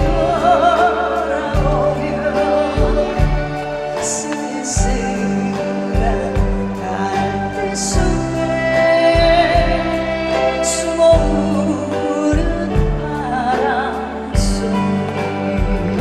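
A woman singing a slow Korean ballad with a wavering vibrato, over a live band with bass and drums.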